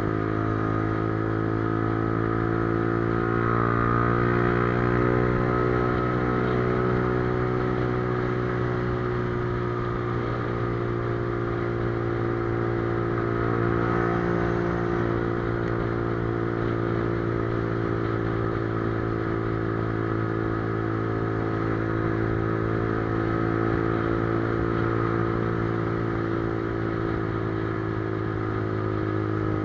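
Motorcycle engine running steadily at a cruise, its pitch drifting only slightly up and down with small throttle changes.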